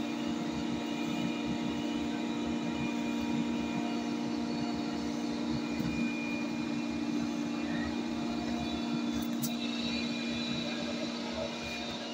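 Steady machine hum with a strong low tone, with one faint click about nine seconds in.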